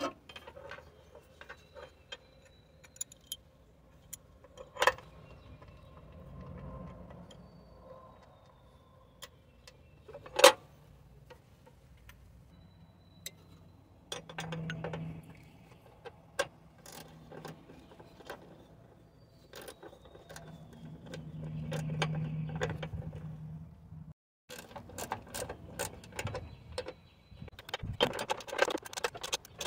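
Ratcheting wrench clicking as it turns the 10 mm bolts of a coolant reservoir bracket, in runs of rapid ticks, mixed with scattered metal clinks of tools and parts and two sharp knocks in the first half.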